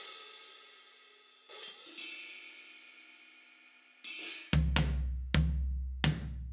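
Sampled drums from the Addictive Drums virtual drum kit being auditioned. A cymbal wash opens, a second cymbal hit about one and a half seconds in rings and fades, and from about four and a half seconds in comes a run of low drum hits, roughly one every three-quarters of a second.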